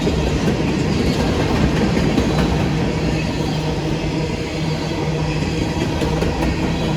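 Norfolk Southern coal train rolling past: a steady low rumble of wheels on rail with a low hum and a few faint clicks.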